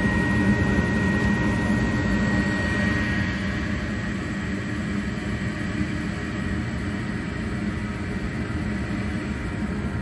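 Gas furnace firing with its burners lit and the inducer motor running: a steady rush of burning gas and motor hum with a thin steady whine, easing a little about three to four seconds in. This is the warm-up delay before the blower motor starts.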